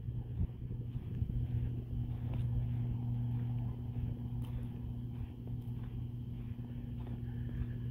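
Electrical substation buzzing: a steady low hum with a fainter higher overtone.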